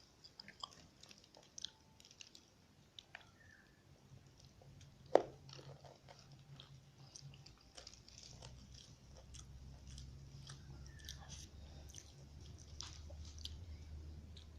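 Close-miked chewing of chicken rice: soft wet mouth sounds with small crunchy bites and scattered clicks. One sharp, much louder click comes about five seconds in, over a faint low hum.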